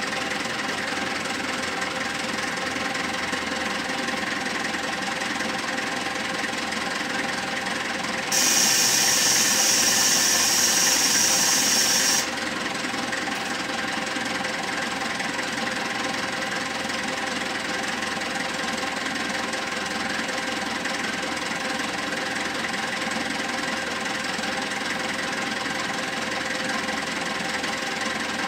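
SYZG wheel loader's diesel engine idling steadily on test after a service. A loud hiss, about four seconds long, starts some eight seconds in and cuts off suddenly.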